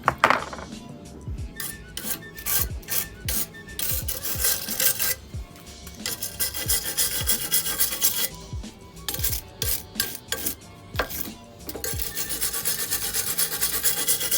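Quick, repeated rasping and scraping strokes of hand work on a material.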